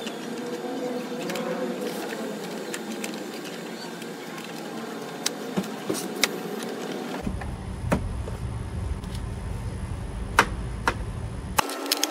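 Hands fitting a plastic tank fairing panel onto a motorcycle, giving a few scattered light clicks and knocks over steady background noise.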